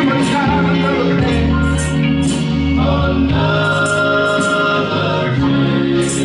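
Gospel music: voices singing over a band with bass and a steady beat of cymbal hits.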